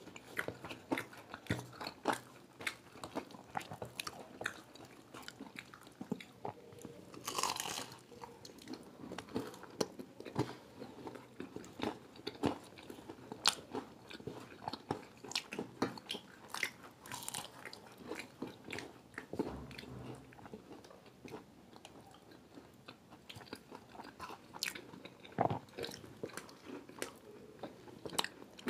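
People biting and chewing crisp deep-fried samosas close to the microphone: irregular sharp crunches of the fried pastry, with two longer, louder crunches about seven and seventeen seconds in.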